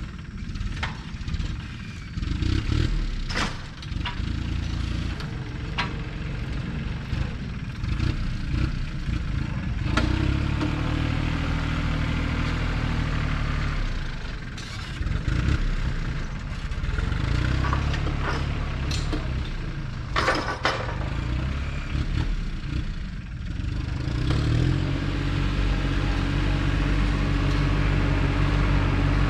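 An engine running steadily, its note strengthening and easing off several times, with scattered sharp knocks and clanks.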